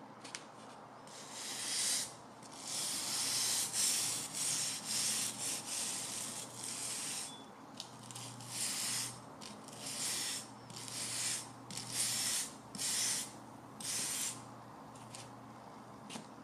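Small wire brush scrubbing softened, stripped paint off a metal gauge-stand base in a run of short rasping strokes, about one or two a second, starting a second and a half in and stopping near the end.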